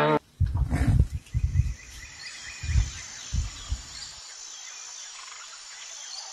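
Outdoor wildlife ambience: birds chirping now and then over a steady high shrill trill that pulses every second or two. Irregular low rumbles run through the first four seconds and then stop.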